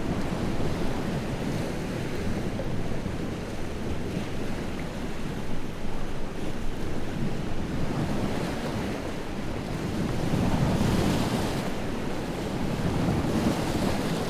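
Lake waves breaking and washing onto the shore in a continuous churning wash, with two louder surges of breaking surf near the end.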